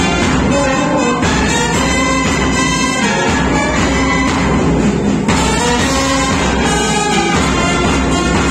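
A brass band playing live: trumpets, trombones and saxophone sounding a melody of held notes without a pause.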